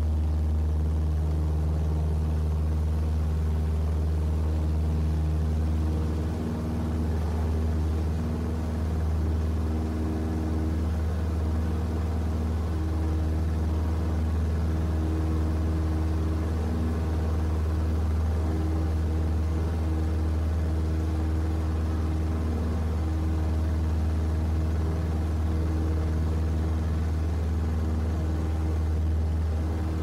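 Aircraft engine idling on standby: a steady low drone, with fainter held tones above it that come and go.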